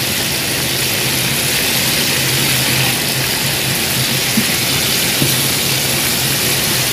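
Battered oyster mushrooms deep-frying in hot oil in a wok, a steady sizzle, with a steady low hum underneath.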